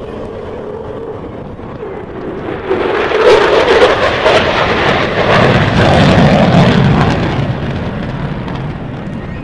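B-1B Lancer bomber's four jet engines on a flyby: loud jet noise that swells about two and a half seconds in, stays at its loudest for several seconds, then fades toward the end.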